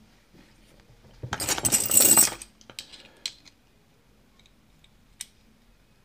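Small metal lock parts clinking and rattling for about a second as the brass lock cylinder and its metal follower are handled. A few light clicks follow, then one sharp click near the end.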